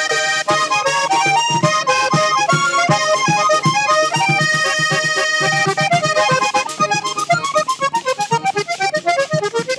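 A vallenato trio plays an instrumental passage: a diatonic button accordion runs quick melodic lines, over the regular strokes of a caja hand drum and the scraping of a guacharaca. About two-thirds of the way through, the accordion shifts to short, choppy notes.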